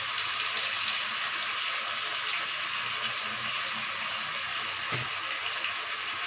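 Onion, tomato and sunberry masala sizzling steadily in hot oil in a pan, with fine crackles and a soft knock about five seconds in.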